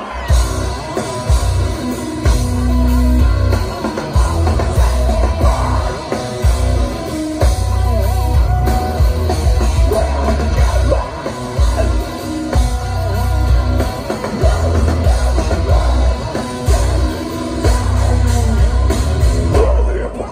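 Heavy metal band playing live and loud: distorted electric guitars over heavy kick drum and bass that come and go in blocks of a second or two, with a singer's voice at times, recorded from within the crowd.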